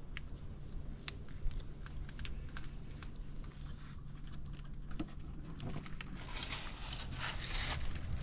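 Scattered light clicks and taps of hands working on an RV water heater's fittings, over a steady low hum. A hiss starts about six seconds in and carries on.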